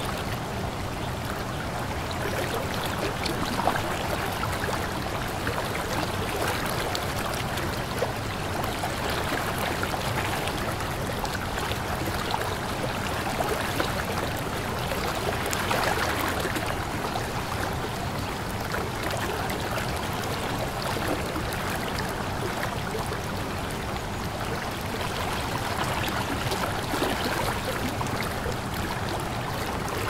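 Shallow river water flowing over a pebbly bank: a steady babble of running water, with many small splashes and trickles.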